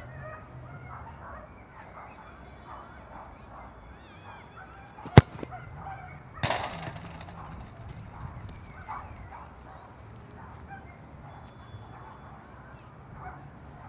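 A football kicked hard in free-kick practice: one sharp thwack about five seconds in, followed a little over a second later by a second, duller impact that fades out. Honking calls sound on and off in the background.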